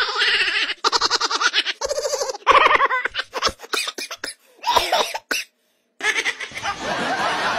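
Repeated bursts of laughter, short pulsed giggles and chuckles. It stops briefly about five and a half seconds in, then a steady rushing noise starts about six seconds in.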